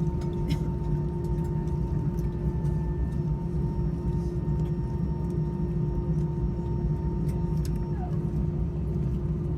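Steady machinery drone: a deep hum with a constant tone over it and a few faint clicks, unchanging throughout.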